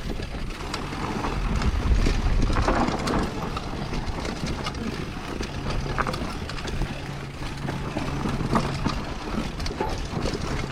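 Blizzard 29 mountain bike ridden along a trail: tyres running over dirt with frequent knocks and rattles from the bike over rough ground, and a low rumble of wind on the microphone a second or two in.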